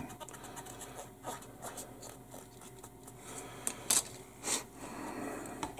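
Faint scraping and rubbing as a paintbrush is worked over a plastic model fuselage half, then small clicks as the plastic part is handled and set down on a cutting mat, two sharp ticks about four seconds in.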